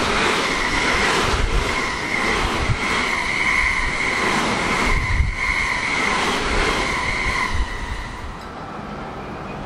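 Electric commuter train running past on the line: a steady rumble with a high-pitched whine and low knocks of the wheels over rail joints. It fades as the last car clears, about eight seconds in.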